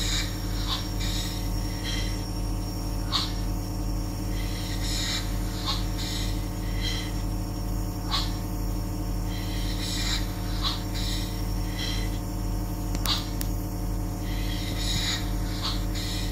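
Leak marine compound steam engine running very slowly on compressed air as a simple, just after its first valve setting: soft puffs of exhaust air come roughly once a second at uneven spacing, over a steady low hum.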